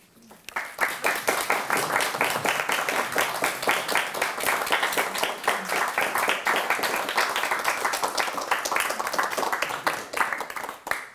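Audience applauding, many hands clapping at once. It starts about half a second in, holds steady, and dies away near the end.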